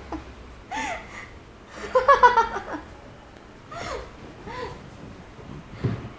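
A woman laughing in short bursts, the loudest and longest burst about two seconds in, with a soft low thud near the end.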